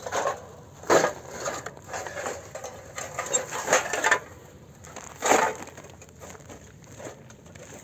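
A series of crunching, cracking noises, like something dry being crushed or snapped, the loudest about a second in and again about five seconds in, then dying away.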